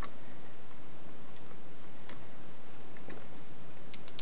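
A few faint, scattered metallic clicks of a hand tool doing up the mounting screws of an electronic ignition coil on a Briggs & Stratton small engine, over a steady hiss.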